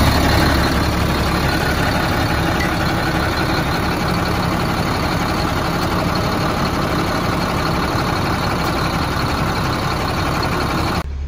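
Motorhome engine idling steadily, heard close up in the engine compartment while it drives the belt-driven dash AC compressor.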